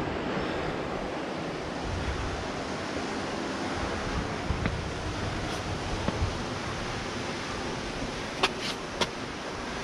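Steady rush of wind on the microphone mixed with ocean surf, with a few short sharp taps, clustered near the end, of hands, shoes or gear against the rock.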